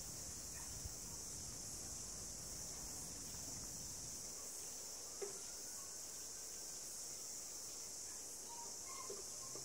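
Steady, high-pitched chorus of insects, with a soft tap about five seconds in and fainter ones near the start and end.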